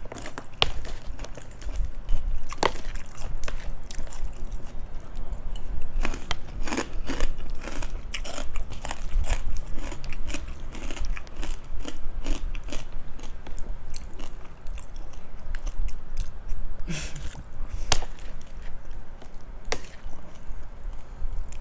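Close-miked chewing and biting with many sharp, irregular crunches: someone eating spicy cucumber salad with crispy pork rinds.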